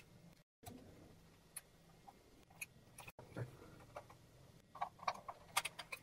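Small Phillips screwdriver clicking and scraping on the base screws of a Canon HV30 camcorder as they are undone: scattered faint clicks, with a quick cluster of several near the end.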